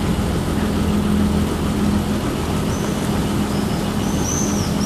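Water taxi's engine running steadily, with the propeller wash churning the water behind the boat. Near the end a bird starts calling in quick, repeated high chirps.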